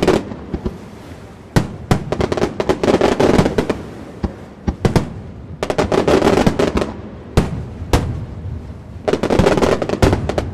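Aerial fireworks display: shells bursting in waves, dense salvoes of rapid bangs every few seconds with single louder reports between them.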